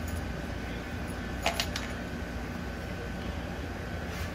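A brief cluster of light clinks about a second and a half in, with one more faint clink near the end, as the new green aftermarket fuel injectors are handled, over a steady low hum.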